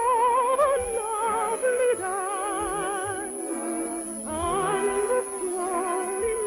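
Operatic soprano singing an operetta song with wide vibrato over orchestral accompaniment, in the sound of a 1950 radio broadcast.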